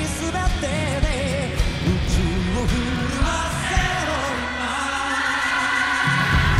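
Live rock band with a male lead vocal, then a large chorus of young voices holding a long note together. The low end drops away for a moment before the full band comes back in near the end.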